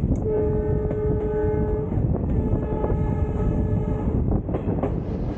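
Passenger train running with a steady low rumble of wheels and wind, while a locomotive horn sounds two long blasts, each about a second and a half, with a short gap between.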